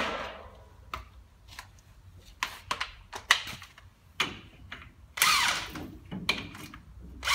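Metal clicks and clinks of a hand tool doing up a nut and washer on a swivel hub stud, with a louder rasping burst about five seconds in and another at the end.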